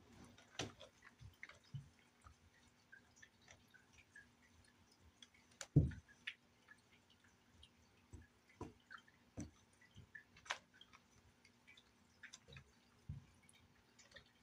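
Scattered light taps, clicks and scratches from cats' paws and claws scrambling on a carpeted, sisal-wrapped cat tree, with one louder thump about six seconds in. A faint steady hum runs underneath.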